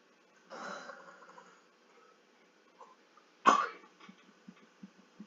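A soft breathy rush of air about half a second in, then one short, sharp, cough-like throat sound from a person about three and a half seconds in, the loudest thing here.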